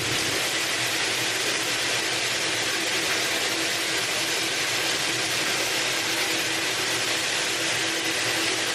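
Handheld hair dryer running steadily: an even rush of blown air with a faint motor hum.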